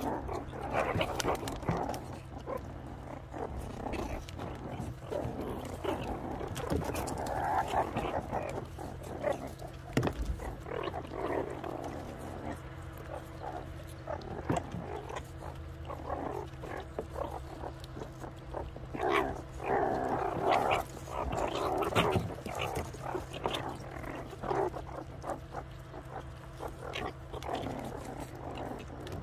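A group of meerkats growling and chattering in irregular bursts while they feed on watermelon, with the calls heaviest about a quarter of the way in and again past the middle.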